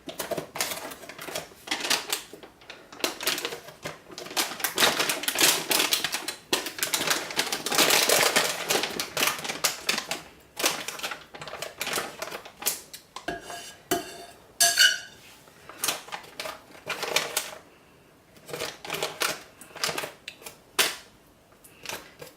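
Icing spatula scraping and tapping as it spreads and smooths thick, marshmallow-like hot process soap into a slab: a quick, irregular run of clicks and scrapes, busiest in the first half and sparser after about thirteen seconds.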